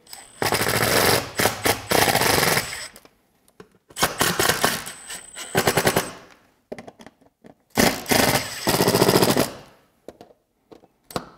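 Cordless impact driver hammering in three bursts of a couple of seconds each, with short trigger blips between them, driving the mounting screws that fasten a transducer board to a boat's transom.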